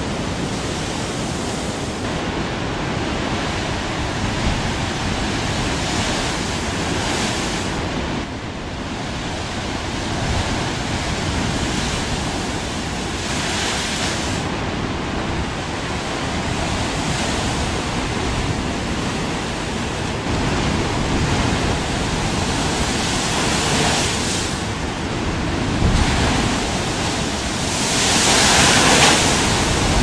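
Ocean surf breaking against a rocky shoreline: a continuous rush of water with several louder surges as waves hit the rocks and throw up spray, the loudest near the end.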